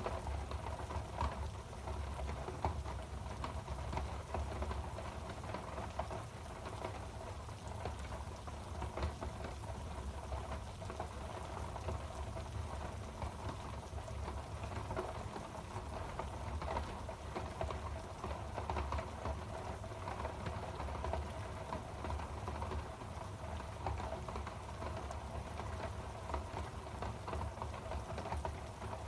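Steady sound of falling rain: an even hiss with a low rumble underneath and no single events standing out.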